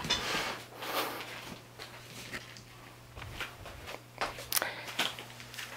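Soft rustling of clothing, scattered small clicks and knocks, and a few footsteps as a person gets up from a chair and moves close to a camera to check it is recording, over a steady low hum.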